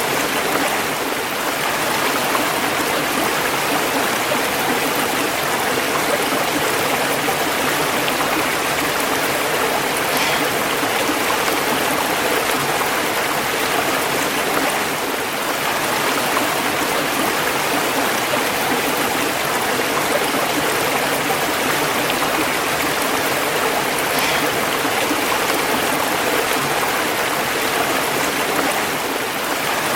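Running water: a stream or small waterfall flowing, a steady even rushing and splashing.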